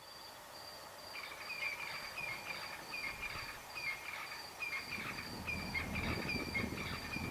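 Outdoor nature ambience fading in, with small creatures chirping in steady, evenly repeating calls at two pitches and a low rumble that grows from about five seconds in.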